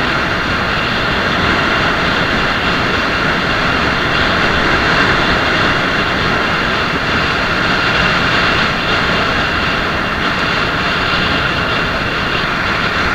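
Steady wind rush over the microphone of an action camera riding along on a moving bicycle, with no break or change in level.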